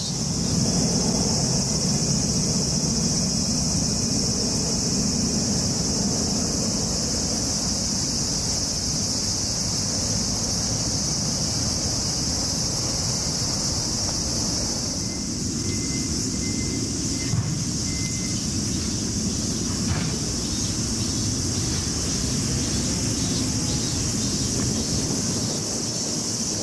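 Steady shrilling chorus of summer cicadas over a low, steady rumble, with a few short high peeps about halfway through.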